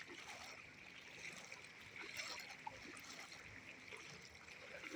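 Faint sloshing of floodwater as someone wades through it, with a low trickling and a few small splashes.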